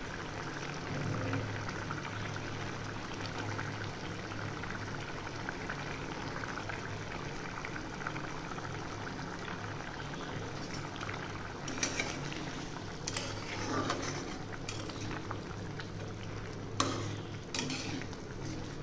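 Spiced egg-curry gravy boiling steadily in a metal kadai. In the second half a metal spatula knocks against the pan about six times as the boiled eggs are stirred in.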